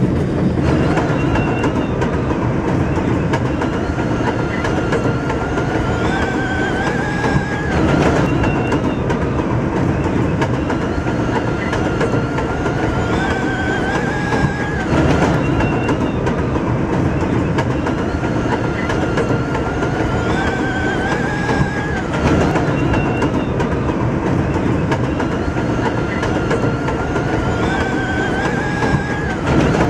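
New York City subway 7 train running at speed on elevated track: a steady rumble with wheels clattering over the rails, and a recurring whine that rises in pitch and levels off about every seven seconds.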